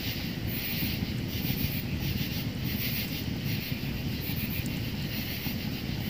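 Wood fire burning in a titanium tent stove: a steady rushing noise with a low rumble underneath and a hiss that swells and fades.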